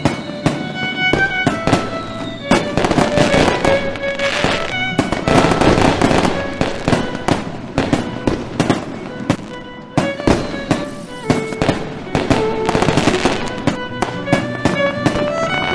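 Fireworks going off in rapid bangs and crackles, mixed with music carrying held melodic notes.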